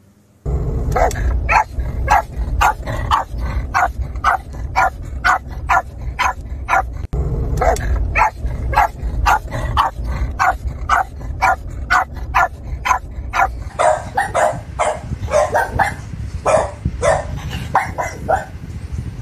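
Boston terrier barking rapidly and repeatedly, about two to three barks a second, starting about half a second in. A steady low rumble of background noise runs under the barks, breaks off briefly about seven seconds in, and drops away around fourteen seconds while the barking continues.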